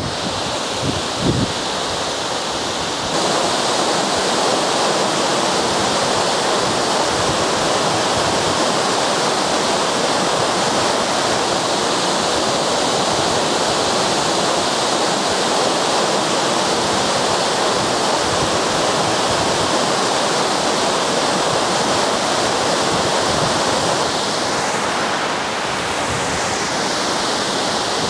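Waterfall in full flow: a steady rush of falling water that grows louder about three seconds in and eases a little near the end, with a few low thumps in the first second or so.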